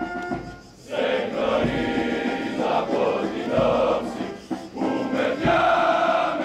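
A large group of voices singing in unison outdoors, in held phrases of a second or two with short breaks between them.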